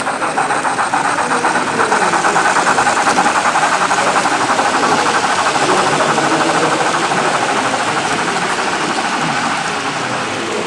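H0-scale model train, a steam locomotive hauling passenger coaches, running along the layout track with a steady, fast, even rhythmic clatter.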